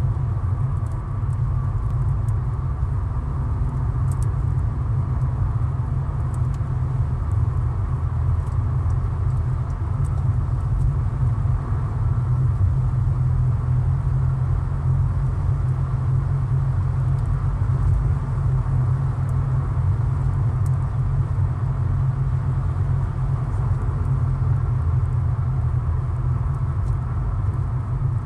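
Steady low drone of a car cruising on a highway, heard from inside the cabin: tyre and road rumble with engine noise, and a few faint ticks above it.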